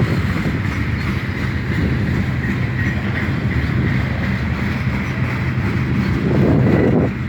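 Freight train rolling past: a steady rumble of wheels on rail, with a faint high squeal running through it and a louder surge near the end.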